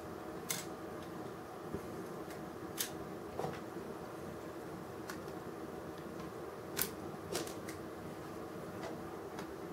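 Sharp, irregular clicks and taps of small diecast and plastic model parts being handled as the pins holding a model crane's superlift wing are worked loose, over a steady low hum.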